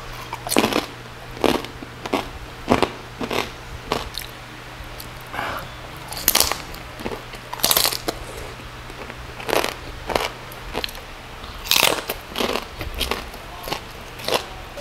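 Close-up crunching bites and chewing of crispy lechon liempo, roast pork belly with hard crackling skin. Sharp crunches come irregularly, about one a second, with a few louder ones.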